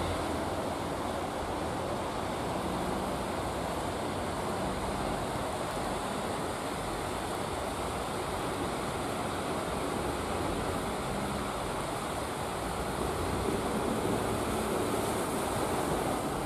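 Ocean surf breaking and washing onto the shore: a steady rushing of waves.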